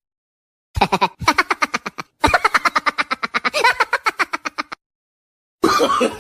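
Laughing sound effect: two bursts of rapid staccato cackling at about ten pulses a second, the first about a second long and the second about two and a half seconds, with a short break between them. A new voice starts near the end.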